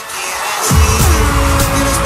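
Electronic music; a heavy bass line comes in under a second in, with a falling tone above it.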